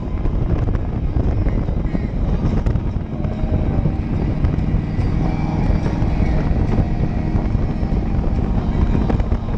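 Motorcycle at road speed: the engine runs steadily under a heavy low rush of wind on the microphone.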